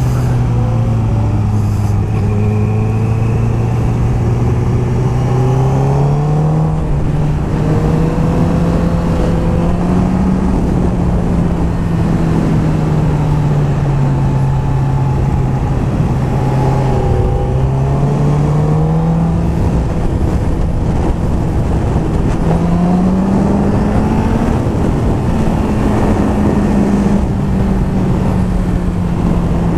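Sportbike engine running under changing throttle while riding, its note rising and falling slowly several times, over steady wind rush on the helmet microphone.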